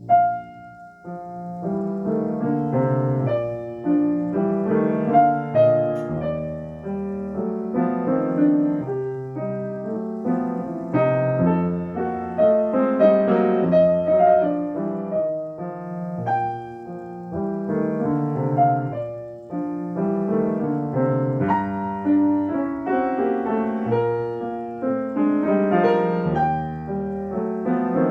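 Solo piano playing classical music, starting straight out of silence at the very beginning, with deep bass notes held under the chords now and then.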